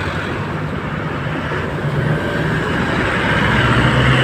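Street traffic with a large vehicle's engine running close by, its hum growing louder toward the end.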